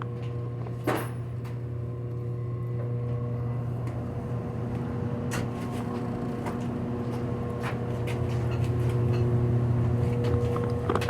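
High-efficiency furnace fan running with a steady hum, air moving through its vent, swelling a little near the end. A sharp knock about a second in and a few light clicks come from the work nearby.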